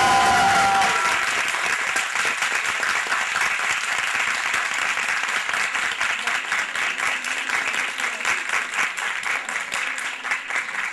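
Audience applauding. Dense clapping at first that gradually thins into more scattered, separate claps toward the end.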